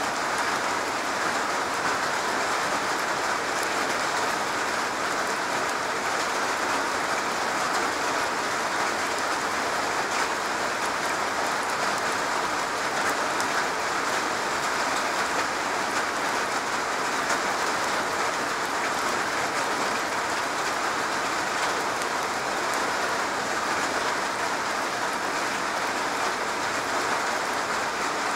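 Steady rain falling on a garage roof: an even hiss of many small drop impacts that keeps the same strength throughout.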